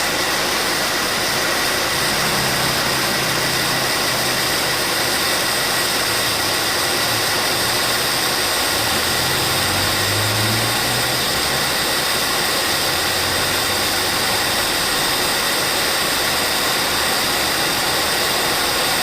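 2017 Subaru Forester idling with the air conditioning running, its AC compressor making an abnormal steady whine over the engine noise, which the shop puts down to a moderately worn compressor. A deeper hum swells briefly about two seconds in and again around ten seconds in.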